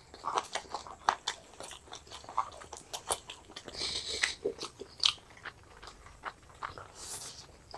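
Two people chewing and biting into fried chicken lollipops and chow mein noodles: scattered small crunches and sharp clicks of eating, close to the microphone.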